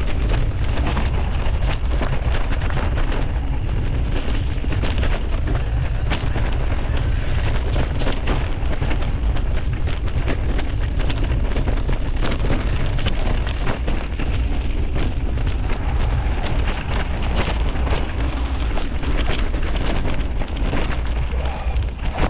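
Mountain bike ridden fast along a stony trail: a steady low rumble of wind on the microphone, with dense crackling and rattling from the tyres on gravel and the bike jolting over rough ground.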